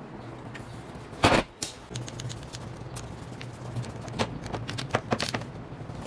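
A wooden thump a little over a second in, then a run of small scattered clicks and taps as a screwdriver works a screw on the egg turner's motor mounting plate.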